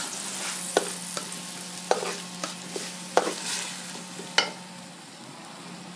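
Tomato and minced-chicken sauce sizzling in a stainless steel pan while a plastic spatula stirs and scrapes it, with a handful of sharp clicks of the spatula against the pan. The sizzle slowly dies down, a little water having just been added to the sauce.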